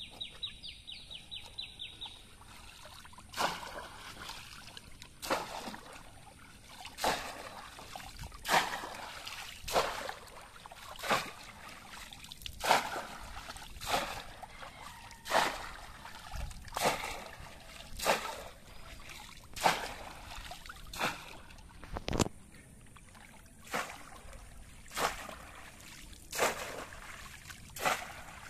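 Bamboo polo fish trap plunged again and again into shallow pond water, a sharp splash about every one and a half seconds, starting about three seconds in.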